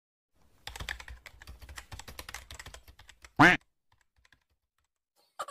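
Typing sound effect, a rapid run of keyboard-like clicks as title text types out letter by letter, followed about three and a half seconds in by a short, loud tone that rises in pitch.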